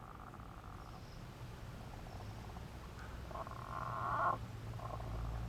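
Frogs croaking in rasping, pulsed calls: one near the start and a louder, longer call about three and a half seconds in, over a low rumble.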